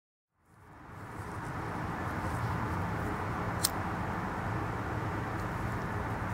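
Steady background rumble and hiss fading in over the first second and a half, with one sharp high click about halfway through.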